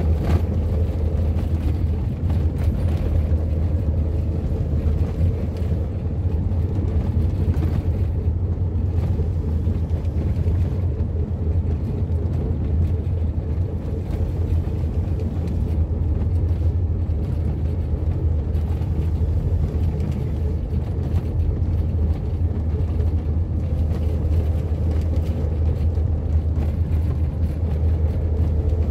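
Steady low drone of a vehicle's engine and tyres running on an unpaved gravel road, heard from inside the cab.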